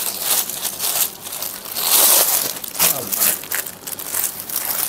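Clear plastic polybag crinkling as it is gripped and pulled open by hand, in irregular rustles that are loudest about two seconds in.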